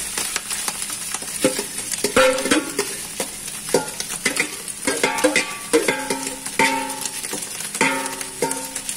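Chopped chicken gizzards sizzling as they land in hot frying oil. A metal spoon repeatedly knocks and scrapes against the stainless steel bowl they are pushed from, and each knock leaves the bowl ringing briefly.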